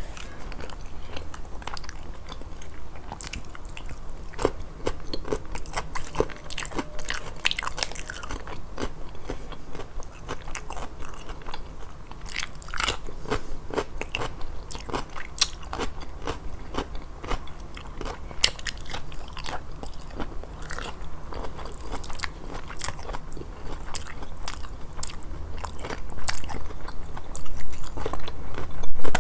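Close-miked eating: biting and chewing with many irregular crisp crunches and wet mouth clicks over a steady low hum. It gets louder near the end.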